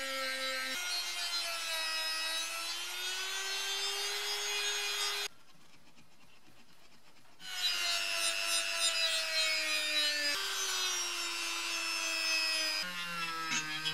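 Handheld rotary tool spinning a small buffing wheel against the metal body of a food mincer to polish it: a steady motor whine that wavers in pitch. It stops for about two seconds midway, then runs again.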